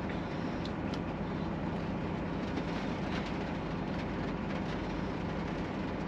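Kenworth truck's diesel engine running steadily, heard from inside the cab: a low hum under an even hiss.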